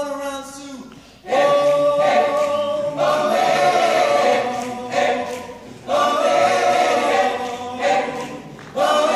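Men's choir singing a cappella in loud, sustained chords. The phrases break off and come back in about every three seconds.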